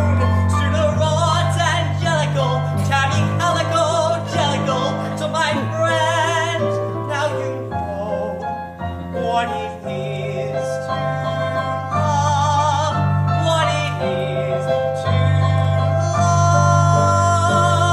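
Male singer performing a show tune with piano accompaniment, with vibrato on his held notes, building to a long, loud held note near the end.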